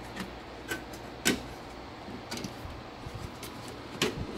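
A handful of sharp clicks and knocks as a headlight bracket is handled and slid under a lip into place. The loudest come about a second in and near the end.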